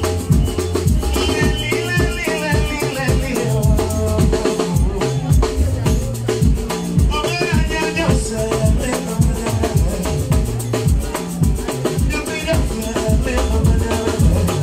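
Upbeat dance music with a steady drum beat and shaker. A high, bending melody line comes in about a second in, again around seven seconds, and briefly near twelve seconds.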